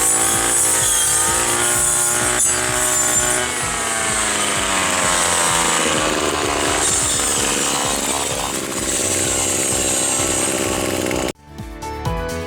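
Small two-stroke engine running, with its pitch wavering and sagging over the first few seconds. It cuts off abruptly about eleven seconds in.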